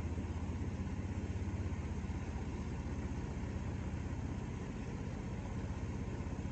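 Harbor Freight Predator 22 HP V-twin engine on a Mud-Skipper long-tail mud motor running steadily under way, a fast, even low pulsing with no change in revs. The engine is still being broken in and runs smoothly.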